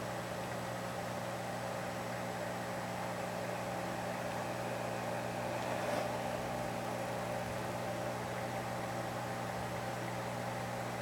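Steady electric hum with an even hiss from an aquarium pump running.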